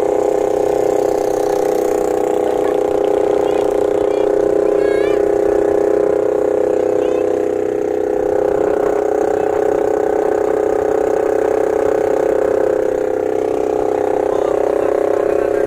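Engine of a motorized wooden banca (bangkang de motor) running steadily under way, with its note dipping briefly about halfway through and again near the end.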